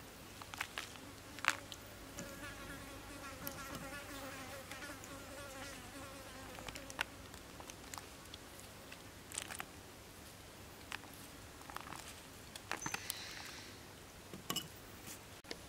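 A flying insect buzzing close by for several seconds, starting about two seconds in, with scattered light ticks and taps around it.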